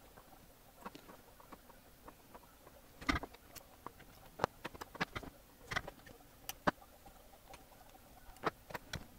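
Flush cutters snipping the excess component leads on the back of a soldered circuit board: about ten sharp clicks at irregular intervals, starting about three seconds in.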